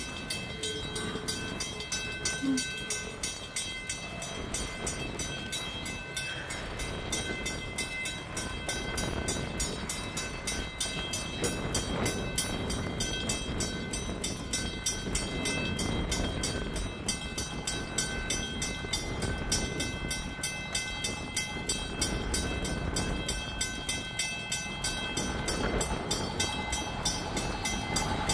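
Rumble of a distant approaching train, slowly building in loudness, with a few faint steady high tones throughout.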